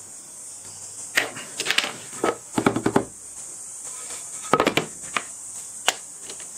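Irregular clacks and knocks of a metal Kreg bench clamp being worked open off a wooden board, followed by a plastic pocket-hole jig being handled and set against the board.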